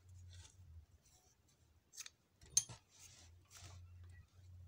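Scissors cutting 3 mm macrame cord, with a sharp snip about two and a half seconds in and a smaller one just before it, amid faint rustling as the crocheted cord is handled.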